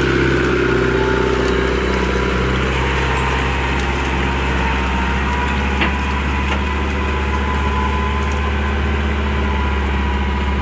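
Tractor engine running at a steady speed, an even, unchanging drone.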